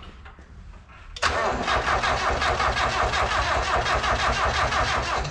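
Mazda Miata's VVT-swapped 1.8-litre four-cylinder engine being cranked over by its starter, starting suddenly about a second in with an even, fast pulsing and stopping near the end. The engine turns over without catching: a first-start attempt on a new RusEFI ECU and trigger-wheel setup that does not fire.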